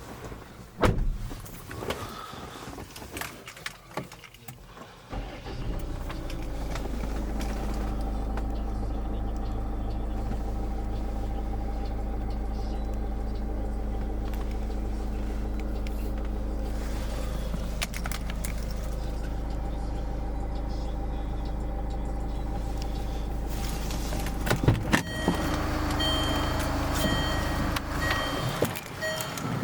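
Land Rover engine running at a steady idle after a few clicks and knocks; it settles into the even hum about five seconds in. About 25 seconds in a sharp knock is heard, and the sound changes for the last few seconds.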